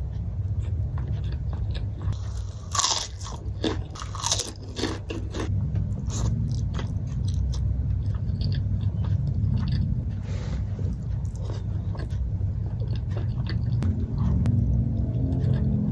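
Close-miked eating: loud crunchy bites into kerupuk crackers, clustered about three to five seconds in, followed by steady chewing with scattered small crunches.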